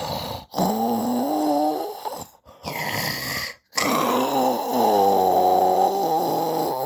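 Snoring with a wavering, pitched tone, cut by short silent gaps three times.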